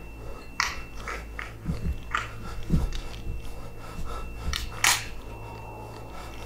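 Irregular short clicks, knocks and scuffs, about ten in all, from a person moving through a room carrying a gun and flashlight, over a faint steady high whine and low hum.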